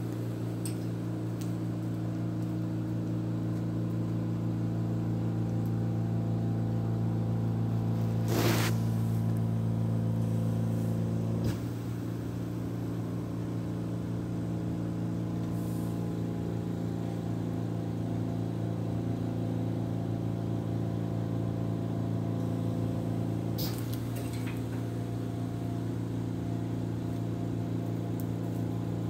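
Home oxygen concentrator running with a steady low hum, which drops slightly in level about eleven and a half seconds in. A short burst of noise about eight seconds in is the loudest moment, with a fainter one near the end.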